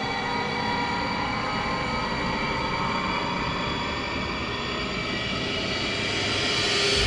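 Cinematic horror sound effect: a dense, sustained drone of many layered tones over a rushing noise, swelling louder and brighter as it rises over the last couple of seconds.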